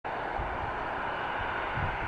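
Boeing 737-300's CFM56-3 jet engines making a steady, even roar, with a few short low rumbles underneath.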